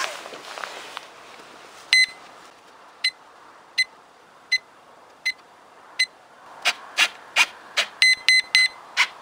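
Radio-control gear beeping during receiver binding: six short single beeps of the same pitch, evenly spaced under a second apart. About two-thirds in they give way to a quick run of short servo whirs, with three fast beeps among them.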